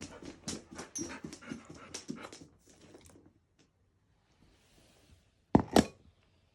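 Golden retriever puppy eating, with about three seconds of rapid, irregular chewing and licking. Near the end come two short, loud knocks.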